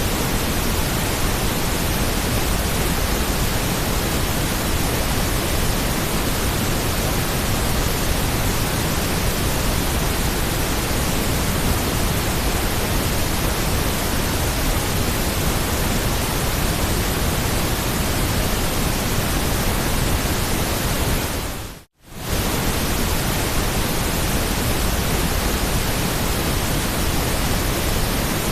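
Steady, even hiss of generated white noise spread across all pitches. It dips to silence for a moment about two-thirds of the way through, then comes straight back.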